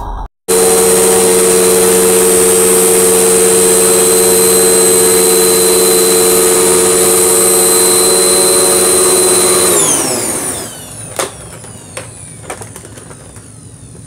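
Hoover WindTunnel MAX upright vacuum cleaner running steadily with a motor whine, then winding down with a falling pitch about ten seconds in as it is switched off. A few light knocks follow.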